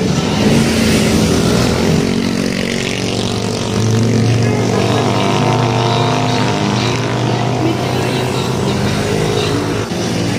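Motor vehicle engine running steadily under a constant rushing noise.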